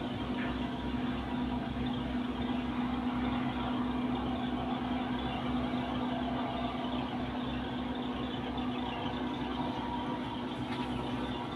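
Landing craft's diesel engine running steadily: a constant hum with a low, even throb underneath.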